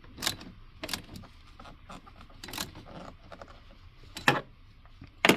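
Irregular metallic clinks and taps of a 10 mm socket wrench on the fastener and bracket as the fan controller module is bolted in, the two loudest near the end.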